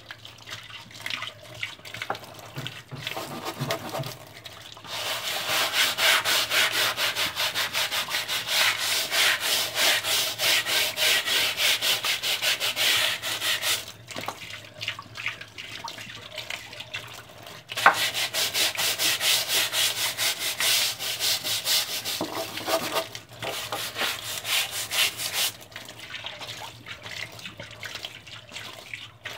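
Laundry being scrubbed by hand: rapid, even rubbing strokes in two long spells, the first starting about five seconds in and the second a little past halfway, with softer rubbing between.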